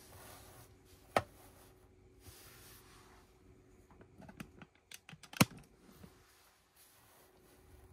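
Plastic Lego pieces clicking as they are handled and pressed together: a sharp click about a second in, then a run of small clicks and rattles building to the loudest snap about five and a half seconds in.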